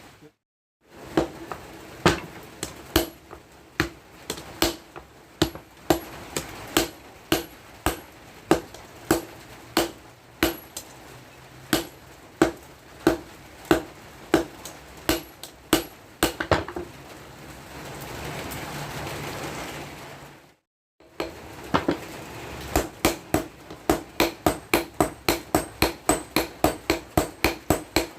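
Hand hammer striking the steel of a tractor tiller blade as it is beaten into a machete, each blow ringing. The blows fall about one and a half a second, then after a short break quicken to about three a second.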